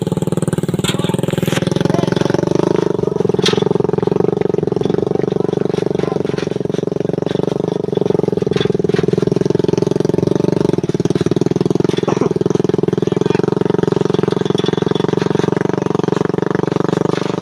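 Small motorcycle engine of a homemade car running steadily at an even speed, with a few light knocks.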